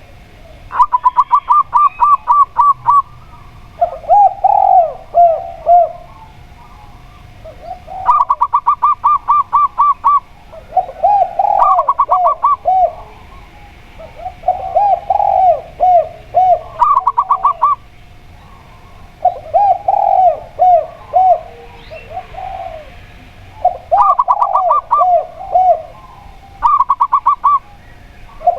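A zebra dove (perkutut) and a spotted dove (tekukur) calling in turn. The zebra dove gives about six quick high coos in a row, roughly six times. Between them the spotted dove gives lower, rounder phrases of three or four coos, the steady two-part 'kuk 2' call.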